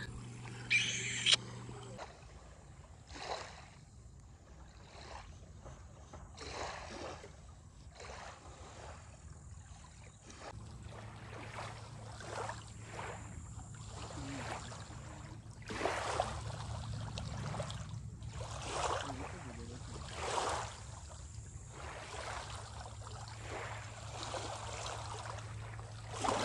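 Water splashing and lapping in irregular bursts, with the steady low drone of a motorboat engine at the start and again from about ten seconds in.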